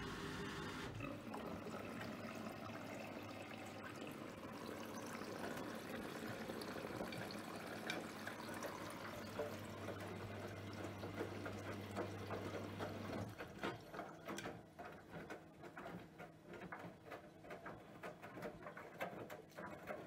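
Bosch Serie 4 VarioPerfect washing machine in its rinse cycle: water sloshing and running in the drum, with a steady low hum that stops about two-thirds of the way through. After that comes a string of irregular soft clicks and knocks.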